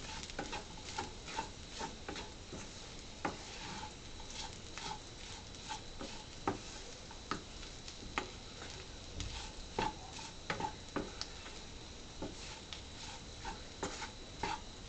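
A spatula stirring and scraping beef pieces around a heavy-bottomed pan in irregular strokes, over a faint sizzle of the meat frying in coconut oil. The cooked beef is being dry-fried until it turns black.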